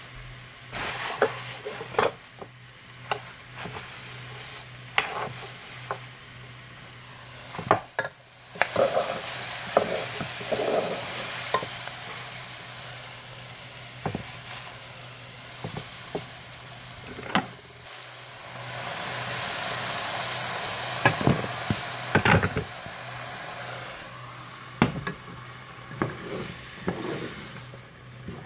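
Curry vegetables frying in a pan, the sizzle swelling in two louder spells, about a third of the way in and again past the middle. A utensil stirring and clacking against the pan now and then, in sharp knocks.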